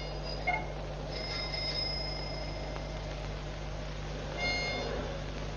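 Bicycle bells ringing several times: a short ring about half a second in, a longer ring from about a second in, and another near the end, over a faint steady low hum.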